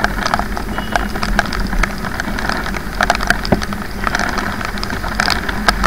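Motorcycle riding through heavy rain: raindrops striking the rider's camera and helmet in many sharp scattered taps over the bike's steady engine hum and wet road noise.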